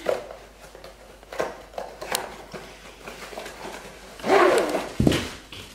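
Cardboard boxes being handled: light rustles and taps, then a louder scrape of cardboard sliding against cardboard about four seconds in, ending in a low thump.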